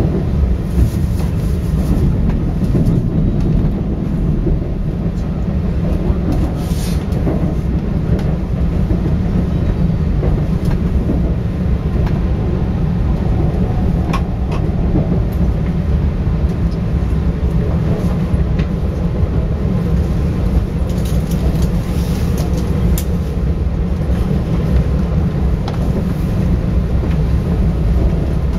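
Cabin noise inside a MAX double-decker Shinkansen train pulling into its terminus: a steady low rumble of wheels and running gear, with a few faint clicks.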